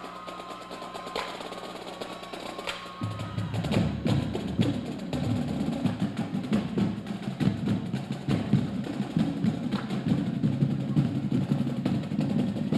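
High-school marching drumline playing: rapid sharp stick and rim clicks at first, then the drums come in about three seconds in and play a busy, loud cadence with snare rolls.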